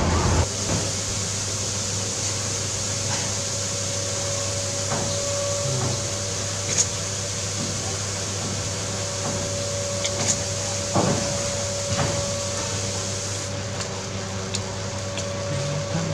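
Steady hiss and hum of a crepe cooking on a hot griddle, with a faint steady tone underneath and a few light clicks.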